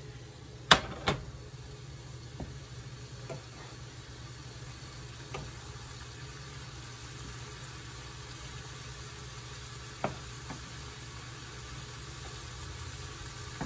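Wooden spoon stirring scrambling egg and noodles in a metal skillet, with a soft steady sizzle underneath and the spoon knocking against the pan now and then; two sharp knocks about a second in are the loudest.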